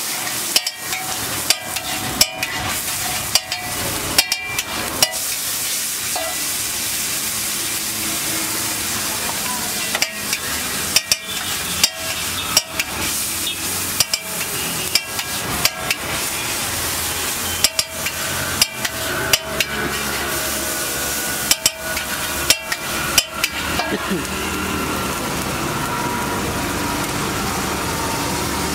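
Chopped onions and tomatoes sizzling in oil on a large flat griddle (tawa). A metal spatula scrapes and clacks against the griddle in repeated clusters as the mix is stirred and chopped; the clacking stops near the end, leaving only the steady sizzle.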